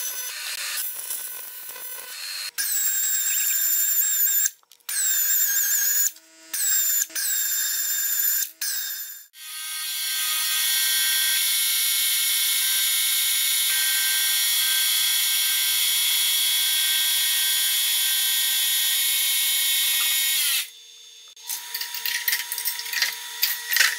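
AC TIG welding arc buzzing on cast aluminum in several short bursts, each starting and stopping abruptly, some opening with a falling whine. Then a milling machine's face-mill cutter machines the welded aluminum intake manifold flat, a steady high-pitched cutting sound for about ten seconds that cuts off suddenly, followed by irregular clatter near the end.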